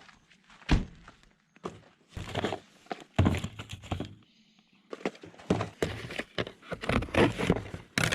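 A series of irregular knocks and thuds, with one sharp thunk about a second in.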